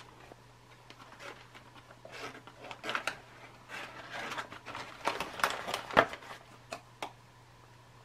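Foil retort pouch crinkling and rustling in the hands as beef fried rice is squeezed out of it into a paperboard tray, with irregular crackles and one sharper click about six seconds in.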